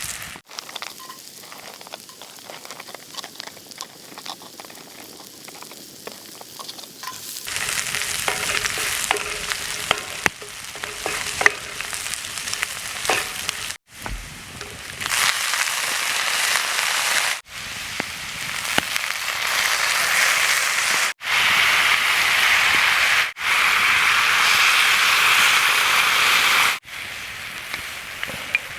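Food frying in hot oil, a steady sizzling hiss with occasional clicks of a utensil, in several clips that cut in and out. It is quieter for about the first seven seconds and much louder after that.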